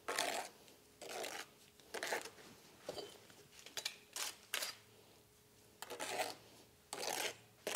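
Steel brick trowel scraping and slapping mortar as clay bricks have their head joints buttered and are set into a mortar bed. A run of short scraping strokes, about one a second, with a couple of sharp clicks.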